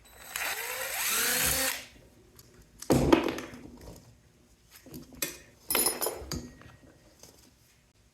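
Power drill running in bursts while disassembling a cooling unit for scrap. The first run lasts about a second and a half, its pitch sweeping up and down; two shorter, sharper bursts follow, about three seconds apart.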